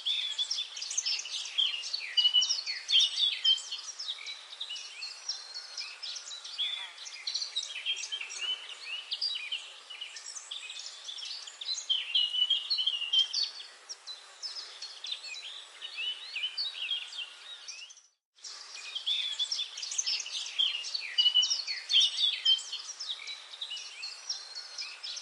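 Birds chirping and twittering: many short, high chirps overlapping in a busy chorus. There is a brief silent break about three quarters of the way through.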